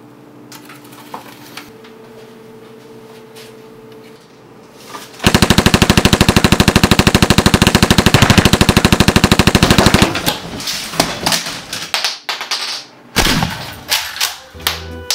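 Automatic gunfire: a few quiet seconds with light clicks, then a continuous rapid burst of shots lasting about five seconds, followed by scattered single shots.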